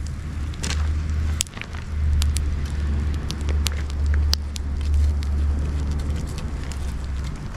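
Wood bonfire of dried shiitake logs and fig branches crackling, with sharp pops scattered irregularly through it, over a steady low rumble that drops out briefly about a second and a half in.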